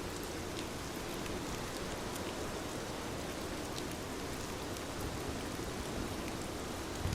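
Steady rainfall, a continuous even hiss with scattered faint ticks of drops.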